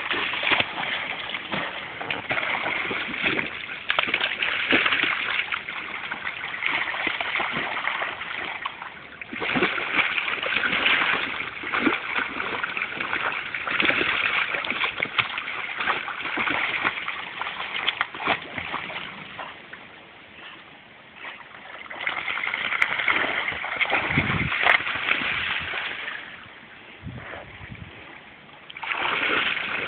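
A Labrador retriever splashing and churning the water of a shallow river as it grips and tugs on a rope. The splashing comes in long spells, with quieter lulls about twenty seconds in and again shortly before the end.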